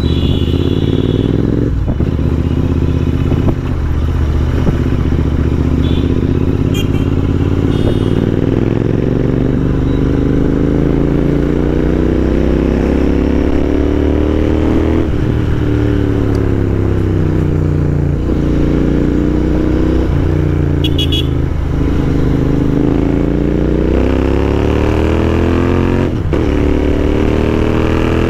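Royal Enfield Interceptor 650's 648 cc parallel-twin engine, fitted with a non-stock exhaust, running under way. Its note climbs and sinks with the throttle, with sudden drops at gear changes several times.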